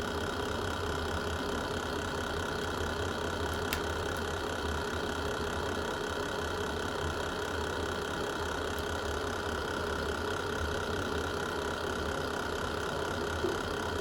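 Wood fire in a fireplace burning with a steady low rumble, with only a sharp crackle about four seconds in and a soft knock near the end.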